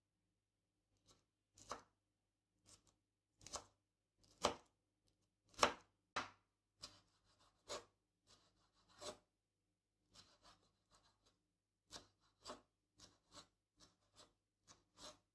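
Kitchen knife slicing red bell pepper into thin strips on a wooden cutting board: a string of unevenly spaced knife strikes on the board, loudest in the first half.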